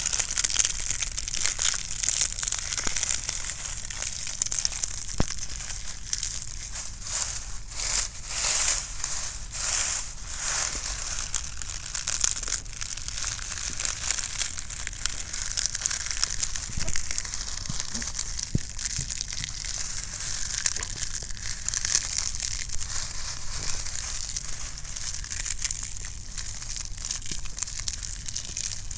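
Dry, crunchy leaves being crushed and crumpled: a continuous crunching crackle made of many small sharp crackles.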